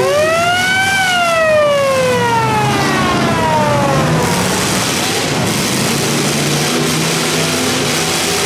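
A siren winds up over about a second and then winds slowly down over the next three seconds, signalling the start of the heat. Under it and after it, the eight-cylinder engines of the welded demolition-derby cars rev and run.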